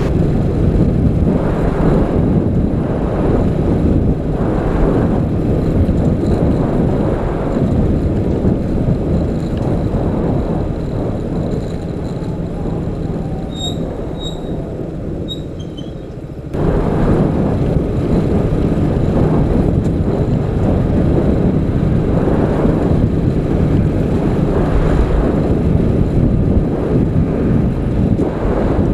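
Motorcycle being ridden along a road: engine and wind noise as one steady rumble. It eases off gradually before the middle, then picks up abruptly again a few seconds later.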